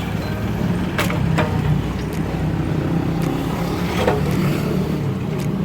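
An engine running steadily with a low hum, with a few sharp knocks and clinks over it.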